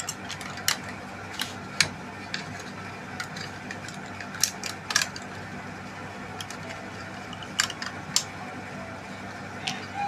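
Irregular sharp clicks and light knocks as small oval loudspeakers and parts are picked up and handled, over a steady low hum.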